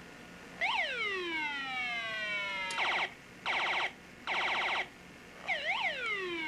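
Electronic siren sound effect: a quick upward chirp that falls away in a long descending wail, then three short buzzy blasts, then two more chirps falling away again near the end.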